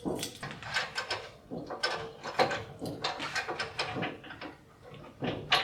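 Metal parts of a bowl-coring jig being handled and adjusted on a stopped lathe: a run of knocks, clunks and sliding scrapes, with the sharpest knock near the end.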